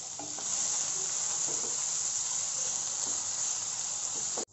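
Raw chopped onion and cumin seeds sizzling in hot oil in a frying pan: a steady high hiss that grows a little louder about half a second in and cuts off abruptly near the end.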